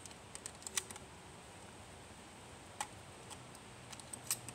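Small sharp clicks of shotgun shells being thumbed through the loading port into a pump-action shotgun's magazine tube: a quick run of clicks in the first second, one near three seconds, and a couple more near the end.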